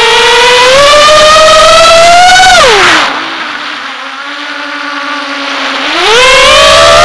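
Brushless motors of a 5-inch FPV racing quadcopter whining, heard from on board: the pitch climbs under throttle, falls steeply about three seconds in as the throttle is cut, holds low and much quieter for about three seconds, then climbs back as power returns.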